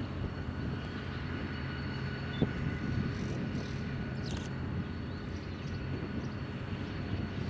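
Diesel freight locomotive engine running with a steady low drone and faint higher whines, and a single sharp knock about two and a half seconds in.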